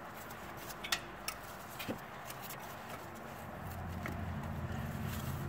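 A few light clicks and taps as the ABS wheel-speed sensor's wire and its clips are worked into a bracket on the front suspension, over a low hum that gets louder past the middle.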